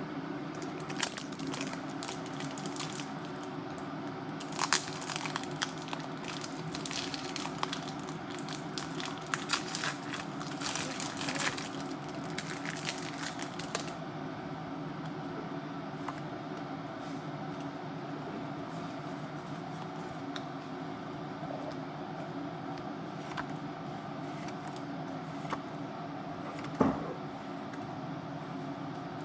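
Foil Pokémon booster pack crinkling and tearing open for roughly the first half, then a quieter stretch of light clicks and rustles, with one sharp knock near the end. A steady low hum runs underneath.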